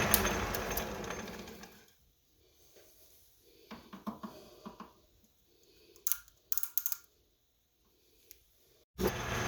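A machine tool's motor running down and stopping over about two seconds, followed by light metallic clinks and taps of metal parts being handled, two sharper clicks, and the motor starting up again abruptly near the end.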